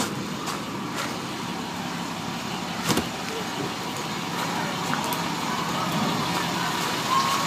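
School bus engines idling with a steady low rumble. Footsteps crunch on hail-covered pavement about twice a second near the start, and a single sharp knock comes about three seconds in.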